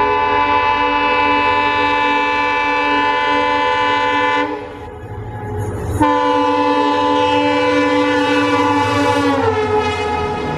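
Indian Railways locomotive air horn sounding a long chord-like blast, breaking off for about a second and a half, then a second long blast whose pitch slides down near its end. A train's running rumble continues underneath.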